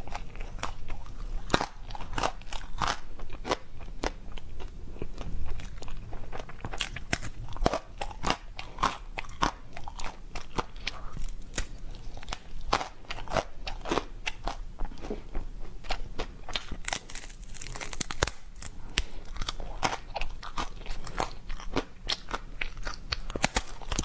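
Close-miked biting and chewing of giant twisted swirl candy lollipops, with many irregular sharp wet mouth clicks and crackles throughout.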